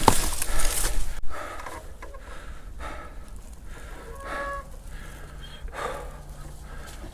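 A rider breathing hard, a heavy breath about every second and a half, after a loud rush of noise in the first second that cuts off suddenly.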